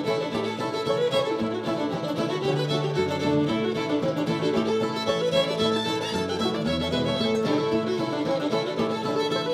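Old-time string band playing an instrumental fiddle tune: a fiddle carries the melody over open-back banjo, mandolin and acoustic guitar.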